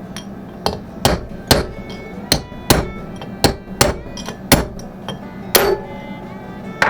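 Hammer blows on steel, about a dozen at an uneven pace of roughly two a second, some ringing briefly: driving a wheel bearing race out of a 1992 Nissan pickup's front hub.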